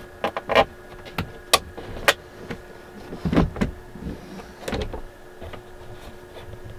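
Travel trailer window being unlatched and opened by hand: its latch handles click and the hinged pane knocks in its frame, a string of sharp clicks in the first two seconds and heavier thumps about three and a half and five seconds in.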